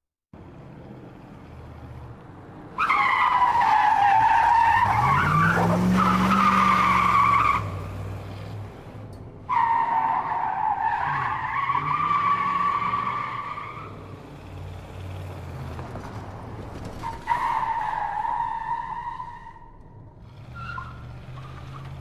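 Three separate bursts of car tyre squeal and skidding, each starting abruptly as if cut in, with a wavering whine. Under the first burst a low rev rises and falls.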